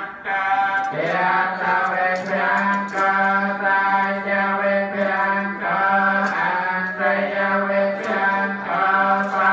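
Buddhist chanting: voices intoning on one steady pitch, breaking for breath every second or two. Faint light clinks, like serving utensils on metal alms bowls, come through now and then.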